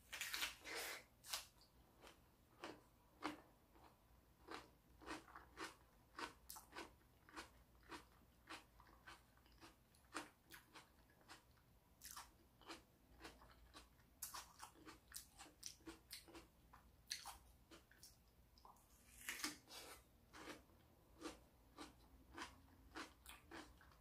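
Bites and chewing of a raw bell pepper cup filled with mashed kabocha squash: crisp crunching bites at the start and again about 19 seconds in, with steady chewing clicks about twice a second between them.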